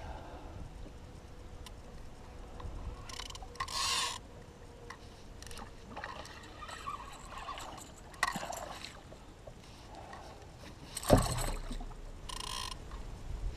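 Short bursts of splashing as a big hooked pickerel thrashes at the side of the canoe, with one sharp knock about eleven seconds in, the loudest sound here.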